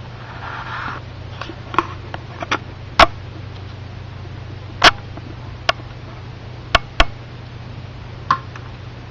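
Irregular sharp clicks and taps, about a dozen, the loudest about three, five and seven seconds in, over a steady low hum.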